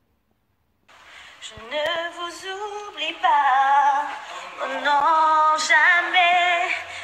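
Silent for about the first second, then a woman singing loudly, unaccompanied, holding long notes with a wavering vibrato.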